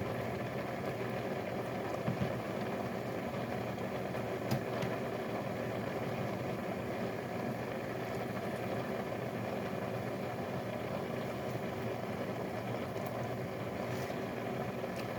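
Steady mechanical hum of a running motor or fan, with a couple of light taps about two seconds and four and a half seconds in.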